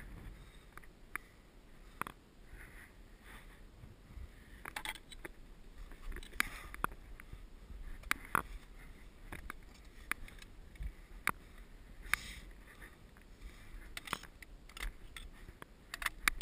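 Ice axe and climbing gear knocking and scraping on granite as a climber moves up the rock: irregular sharp clicks, a few a second at the busiest, over a low steady rumble.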